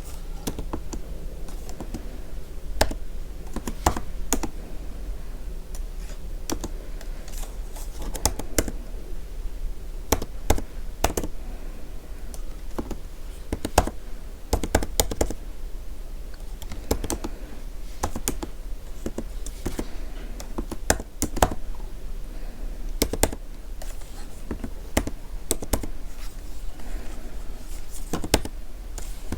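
Typing on a computer keyboard: irregular runs of key clicks, some louder strikes standing out, over a steady low hum.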